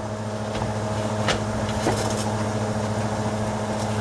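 Steady hum of a kitchen exhaust fan, with faint sizzling and three or four sharp pops from butter and wine sauce cooking in a hot cast-iron grill pan.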